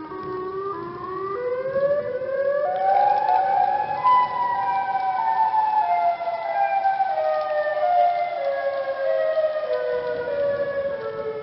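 Chicago outdoor warning siren wailing, several tones sounding together. Its pitch climbs over about two seconds, then slowly winds down in steps.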